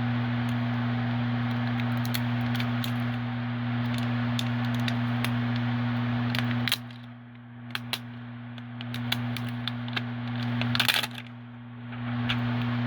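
Small sharp clicks and a crinkling burst as the new iPhone 6s replacement battery and its plastic film are handled, over a steady low electrical hum that drops out briefly twice.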